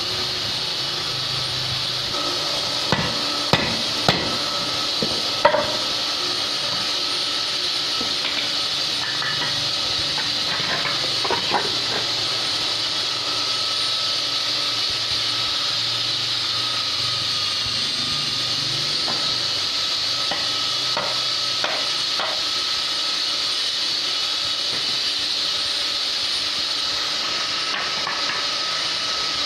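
A few sharp hammer knocks on wood, about five in quick succession a few seconds in and a couple more later, over a steady hiss and hum of workshop machinery.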